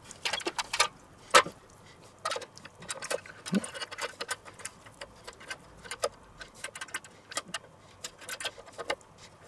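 Irregular metallic clicks and clinks as a rotisserie spit and its prong forks are handled and pushed into a whole raw chicken in a stainless steel pan. The loudest knock comes about one and a half seconds in.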